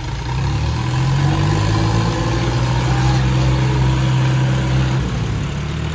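John Deere 5039D tractor's diesel engine running under throttle as the tractor pulls away: the revs come up just after the start, hold steady, and ease off about five seconds in.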